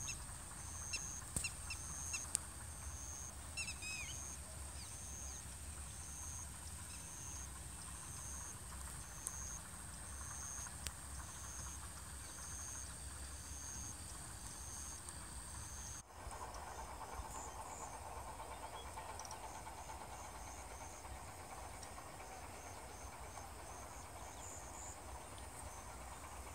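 Faint evening insect chorus in farm fields: a steady high-pitched buzz with a chirp repeating a little more than once a second, over a low steady rumble. A few short bird chirps come in the first few seconds, and after a cut about halfway through a mid-pitched drone joins.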